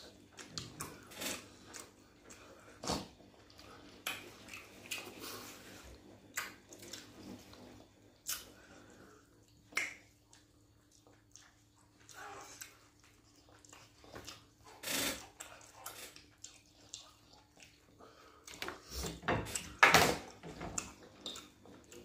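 Close-up eating sounds: scattered wet lip smacks, chewing and finger-licking as pounded yam and fish pepper soup are eaten by hand, short and irregular with quiet gaps between, and a louder cluster near the end.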